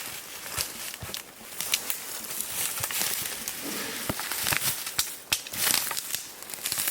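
Rustling and crackling of dry brush and twigs, with scattered sharp snaps at irregular intervals, as people move about close to the microphone.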